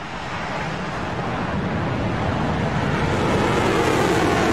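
Rocket Lab Electron rocket's first stage, nine Rutherford engines firing at liftoff: a dense, rushing engine noise that swells steadily louder as the rocket climbs off the pad.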